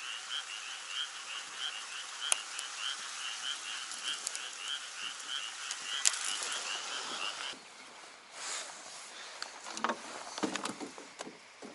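A frog calling over and over, a short croak repeated about two to three times a second, which cuts off about seven and a half seconds in. After that come scattered clicks and knocks of fishing tackle being handled in a boat.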